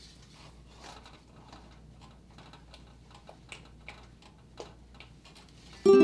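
Faint, irregular soft ticks and scrapes of a silicone spatula stirring thick boiling sauce in an enamelled pot. Near the end a loud plucked ukulele chord cuts in suddenly and rings on.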